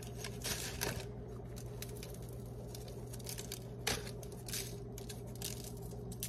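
Faint crackling and tearing as a cinnamon-sugar-coated churro is broken apart by hand, with a sharper click about four seconds in, over a steady low hum.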